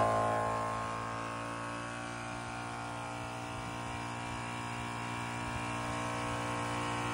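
Tozalazz dual-cylinder 12-volt portable air compressor running under load as it inflates a truck tyre: a steady, even, pitched drone.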